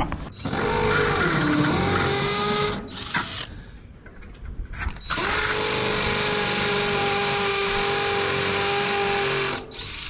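DeWalt cordless hammer drill on hammer setting, drilling into the concrete block base in two runs. The first run lasts about three seconds and its motor pitch dips under load partway through. After a short pause comes a longer, steadier run that stops just before the end.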